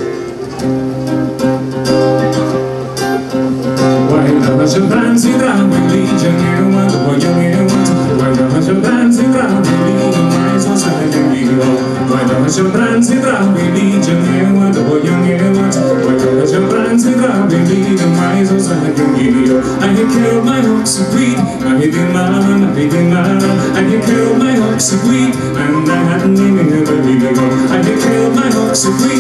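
Folk band playing an instrumental passage live: strummed acoustic guitar and a wind instrument's melody over a steady low drone, with light percussion. It grows louder about four seconds in as the rest of the band joins.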